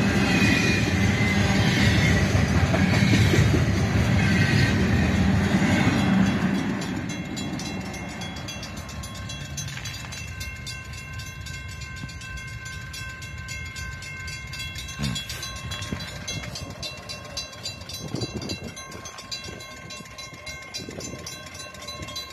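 Double-stack intermodal train cars rolling past on steel rails, loud for the first six seconds or so, then the end of the train goes by and the sound falls away to a fainter steady background with a light, high ringing.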